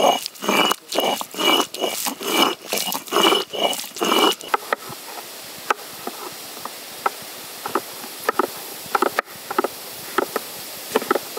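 Stone roller rocked back and forth on a flat stone grinding slab, crushing ginger to paste: rough grinding strokes about twice a second. About four and a half seconds in it gives way to a knife chopping bottle gourd on a wooden board, a string of sharp knocks.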